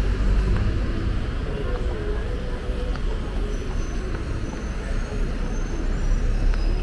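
City street traffic: motor vehicles passing with a steady low rumble, mixed with indistinct voices of passersby.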